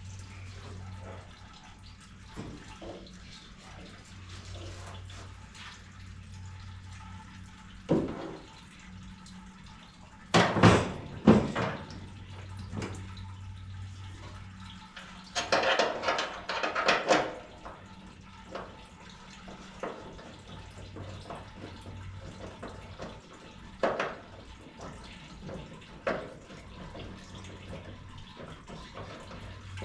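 Scattered metallic knocks and clinks of hand tools working tight bolts loose on a truck, including two loud bursts of clatter, over a steady low hum.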